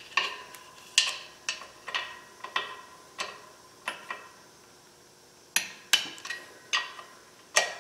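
Torque wrench clicking sharply on the clutch pressure plate bolts as they are tightened to 40 foot-pounds, each click with a short metallic ring. There are about a dozen clicks, spaced irregularly, with a pause of about a second in the middle.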